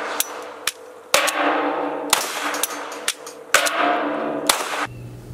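A string of about a dozen Glock pistol shots fired at an uneven pace, each crack followed by a short ringing tail.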